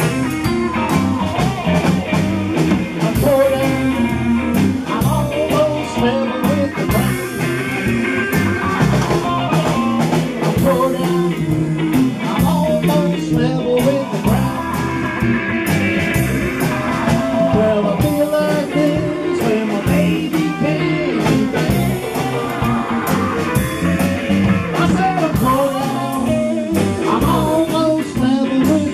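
Live rock band playing a blues-rock number: electric guitars over bass guitar and a drum kit, with a steady drum beat.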